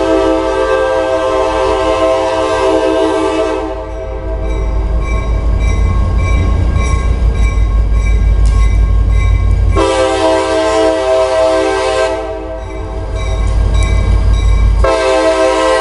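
CSX diesel locomotive's air horn sounding three long blasts close by: one already blowing that stops about four seconds in, a second a little after halfway, and a third starting near the end, with a low rumble between the blasts.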